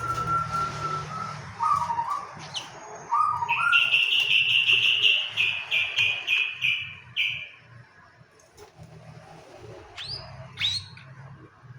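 Long-tailed shrike (cendet) calling: a long falling whistle and a few short notes, then a rapid run of about ten bright, loud chirps over some four seconds, and two quick rising calls near the end. A faint low hum runs underneath.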